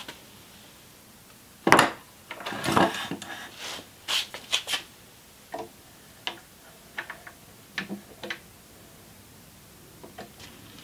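A metal drill press vise set down with a knock on a stand of stacked wooden boards and scraped into place across the wood. This is followed by scattered light clicks and knocks as its screw handle is handled.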